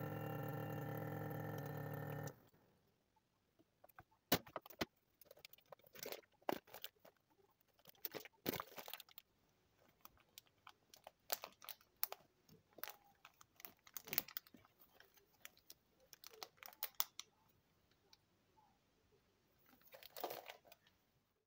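Adler AD 4503 vacuum sealer's pump running steadily as it draws the bag tight, cutting off suddenly about two seconds in. After that, the embossed plastic vacuum bag crinkles and crackles in scattered bursts as it is squeezed and handled.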